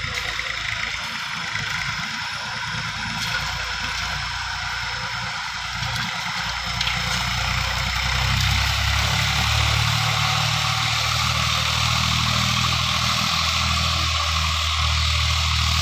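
Massey Ferguson MF240 tractor's three-cylinder diesel engine running steadily under load as it pulls a disc plough through soil, its low drone growing stronger about halfway through.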